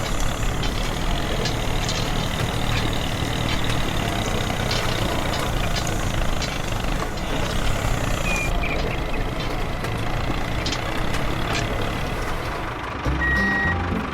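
Miniature model tractor and truck running, a steady rough mechanical noise with scattered clicks and knocks. Near the end the sound changes to a lower, stepped drone with a short high beep.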